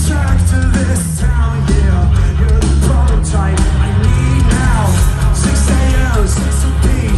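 Live rock band playing loud over a concert PA, with singing over heavy bass and drums, recorded from the crowd on the floor.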